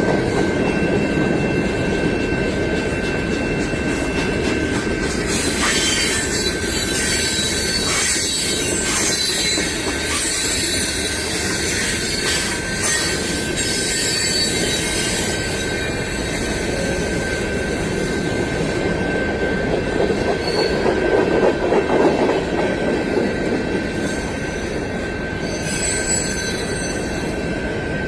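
Long CSX freight train rolling past, its steel wheels squealing on the rail with a steady high-pitched tone over the rumble and rattle of the cars.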